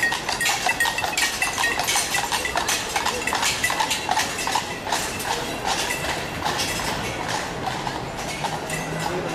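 Hooves of a pair of carriage horses clip-clopping on the road as a horse-drawn carriage passes, a fast, steady run of sharp knocks.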